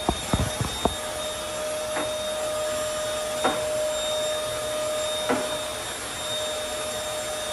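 Corded stick vacuum cleaner running steadily with a steady whine, pushed over a hardwood floor. A few sharp knocks come in the first second, with occasional fainter bumps after.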